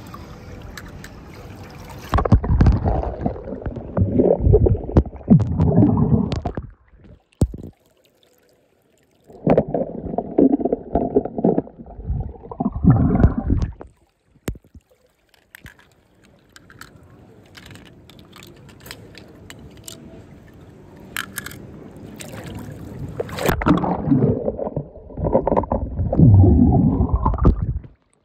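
Water gurgling and splashing in three long bursts, the second and third rising in pitch toward their end, with a fainter trickle between them.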